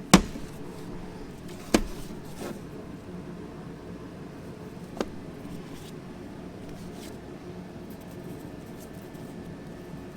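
Engine parts being handled on a workbench: a loud sharp knock right at the start, another about two seconds in, and a lighter click about five seconds in, over a steady low background hum.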